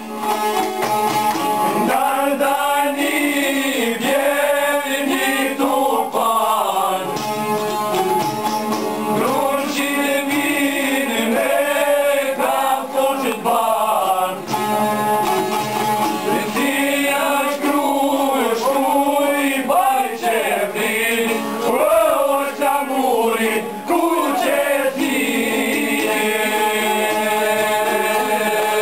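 Men singing a folk song together, accompanied by plucked Albanian long-necked lutes (çifteli). The singing comes in about two seconds in over the lutes.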